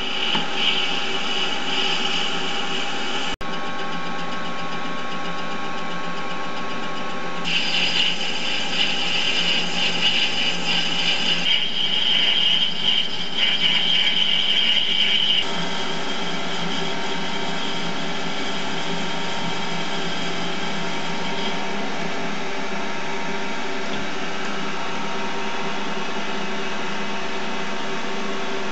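Small benchtop metal lathe running with a steady hum while its cutting tool turns the end of a spinning brass tube, a harsh cutting noise in stretches through the first half. From about halfway on only the lathe's steady running is heard.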